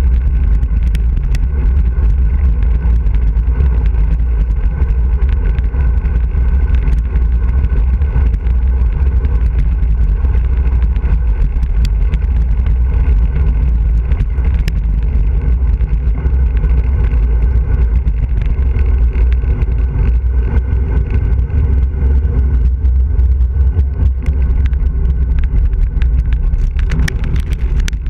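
Steady, loud wind buffeting the microphone of a bike-mounted camera on a fast road-bike descent, heaviest in the low rumble, with a few short clicks and rattles along the way.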